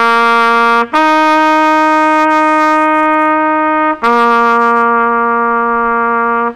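Trumpet alternating slowly between two notes, each held steady for about three seconds: the lower note, then the higher one about a second in, the lower again about four seconds in, and the higher starting again at the end. This is a slow practice drill for an awkward fingering change between two notes.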